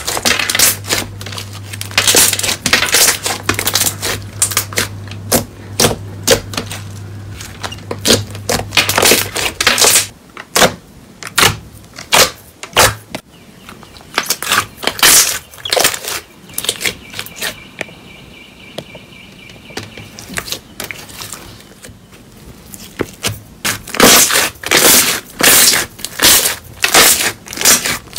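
Slime being kneaded, pressed and stretched by hand, crackling and popping with rapid clicks in irregular clusters. The clicking thins out in the middle stretch and comes thick and fast again near the end.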